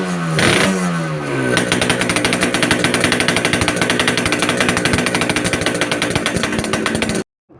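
Yamaha RX-King 135cc two-stroke single running through an open, bored-out exhaust: the revs fall away in the first second or so, then it settles into a rapid, even, crisp popping idle. The sound cuts off suddenly near the end.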